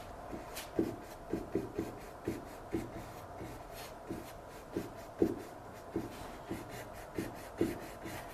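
A 1-inch house-painting brush being jiggled and pulled across an oil-painted canvas: a faint scratchy rubbing broken by irregular soft thumps, about two a second, as the bristles knock the canvas.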